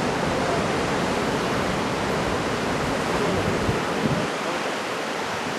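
Steady roar of heavy typhoon surf breaking, a dense even rush of noise with a low rumble underneath that eases about four seconds in.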